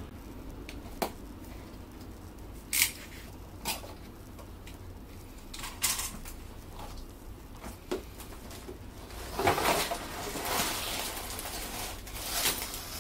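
A box cutter scraping through a cardboard box's seal, with a few sharp clicks and taps as the carton is handled and opened. Then plastic bags of LEGO parts slide and rustle out of the tipped box near the end.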